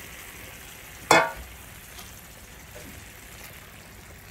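Beef masala sizzling in a large flat pan over a full flame as water is poured in from a steel plate. About a second in, one loud metallic clang with a short ring as the steel plate strikes the pan, followed by a few faint ticks.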